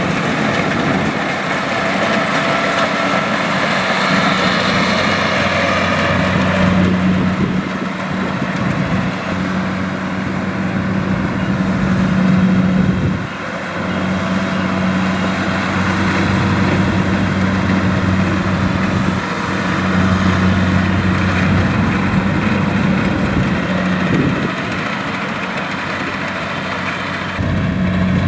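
Rice combine harvester's engine running steadily with a low hum and a rushing noise over it, which is louder for the first few seconds; the engine drops briefly about 13 seconds in.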